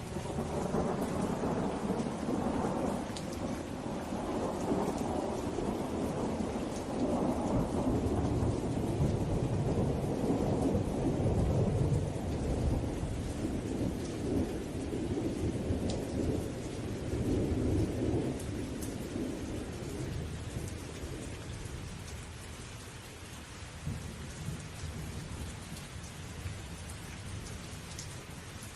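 Steady rain with a long roll of thunder that swells to its loudest about halfway through and dies away over the last several seconds, leaving only the rain.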